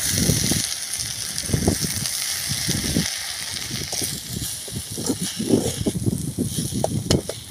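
Drumstick leaves sizzling with onion in an aluminium pan over a wood fire while a slotted metal spoon stirs them, with irregular scrapes and rustles. The hiss of the frying is strongest in the first half and fades after about four seconds.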